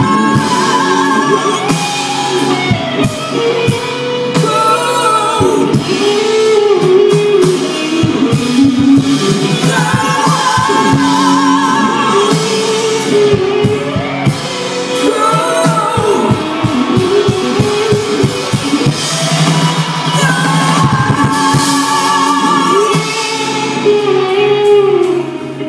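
Live rock band performing a song: female lead vocals sung with vibrato over drum kit, keyboards and electric guitar, recorded from the crowd in front of the stage.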